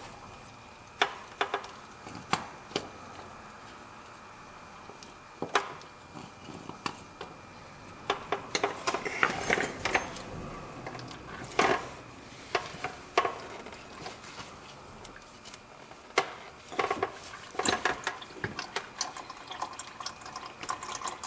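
Engine oil pouring steadily from the oil-pan drain hole into a bucket, with scattered sharp clicks and knocks from handling tools.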